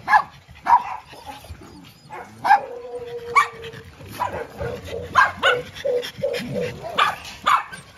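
Several dogs barking in short, sharp barks at irregular intervals. One drawn-out whine comes about two and a half seconds in, and a quick run of yips follows around six seconds in.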